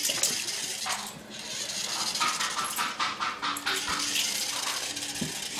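Toy RC car's small electric motor and gears whirring in uneven spurts as it drives across carpet.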